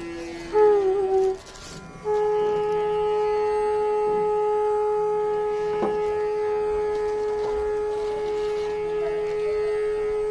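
Background music: a bamboo flute (bansuri) plays a short ornamented phrase that bends in pitch, then holds one long, steady note for about ten seconds over a faint low drone.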